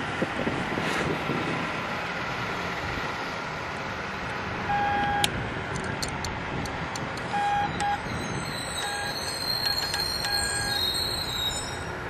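Hand-sent Morse code on a straight key: a few short on-off beeps of a steady mid-pitched sidetone, starting about five seconds in, with light clicks of the key, over steady background road noise.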